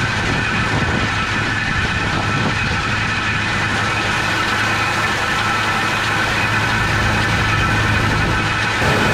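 A New Holland TR89 combine harvester running steadily: a deep, even engine hum with steady higher whining tones above it.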